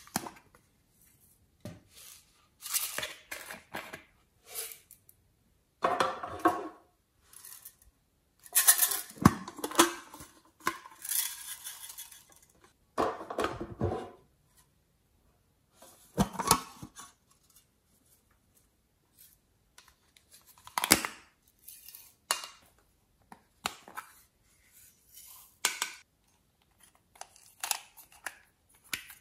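Small plastic toy containers clicking and snapping open, and glitter and sprinkles shaken out of them into a glass dish: irregular clicks, rattles and rustles with short pauses between.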